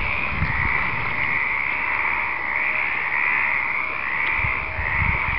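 A dense chorus of stripeless treefrogs calling, many overlapping calls merging into one continuous rasping din.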